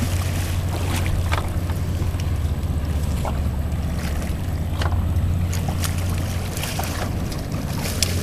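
A boat's engine running with a steady low hum, with brief splashes as a hooked leopard shark thrashes at the surface beside the hull.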